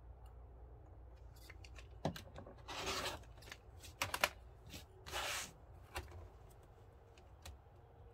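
Rotary cutter trimming thin strips off the edges of stiffened textured vinyl along an acrylic ruler: two short rasping cuts, each about half a second, near 3 and 5 seconds in. Between them, clicks and knocks of the ruler and vinyl pieces being shifted on the cutting mat.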